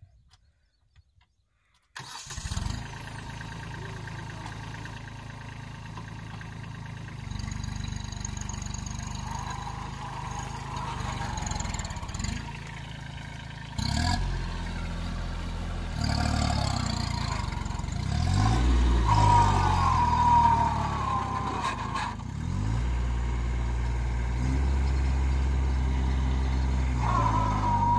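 Near silence for about two seconds, then a Kubota A211N compact tractor's three-cylinder diesel engine comes in suddenly and runs under load, its pitch rising and falling several times past the middle as the tractor is swung through tight turns with the cultivator in the ground.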